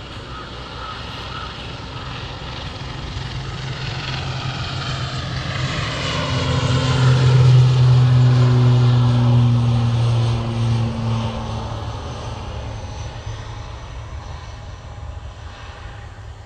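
Twin-engine turboprop airliner passing along the runway, its engines and propellers growing louder to a peak about halfway through and then fading away, the pitch dropping as it goes by.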